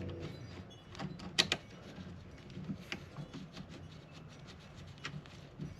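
Small metallic clicks and taps of screws and hand tools being handled, with a sharp double click about a second and a half in.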